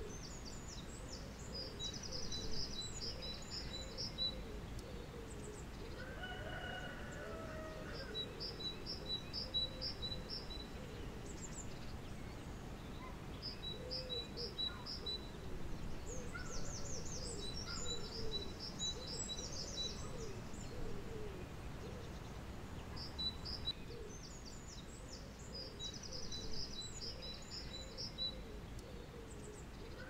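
Garden birdsong: a songbird repeats a short, high, rapid phrase every few seconds while a dove coos low in the background, over a steady low hum of outdoor noise.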